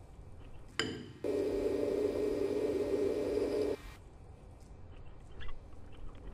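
Cartoon sound effect of water rushing through a pipe: a steady low hum with a light hiss that starts suddenly about a second in, just after a brief tone, runs for about two and a half seconds and cuts off abruptly.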